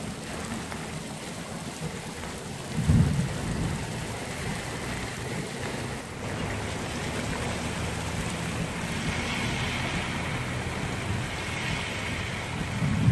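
Muddy flash-flood water rushing across open ground, a steady wash of noise. Two brief low rumbles stand out, one about three seconds in and one at the end.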